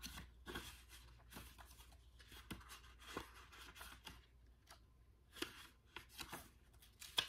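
Faint paper rustling and soft taps, a series of short scattered rustles as the pages of an oracle card guidebook are leafed through.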